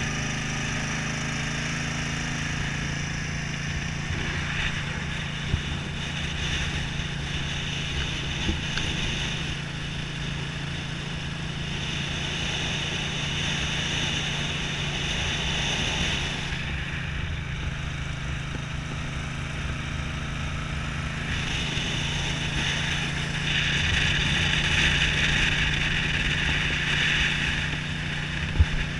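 1982 Honda CX500's V-twin engine running steadily under way, with wind rushing over the microphone and swelling louder in two stretches.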